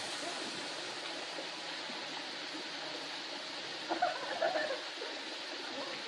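Small waterfall splashing steadily into a rocky pool, an even rush of falling water. About four seconds in, a person's voice calls out briefly over it.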